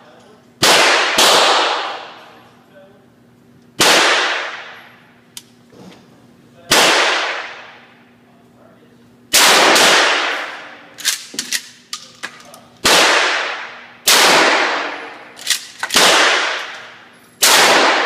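Pump-action shotgun fired repeatedly in an indoor range: about nine loud blasts, a couple of seconds apart and two in quick succession at the start, each ringing out in a long echo. Fainter sharp cracks fall between some of the blasts, over a steady ventilation-like hum.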